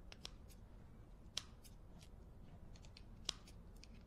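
Scissors snipping off excess electrical tape around a small DC motor: a few faint, sharp snips, the loudest about a second and a half in and again near the end.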